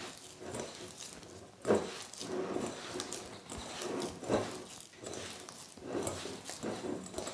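Hands kneading butter and sugar in a glass bowl: irregular soft squelching and rubbing, with two louder squelches at about two and four and a half seconds in.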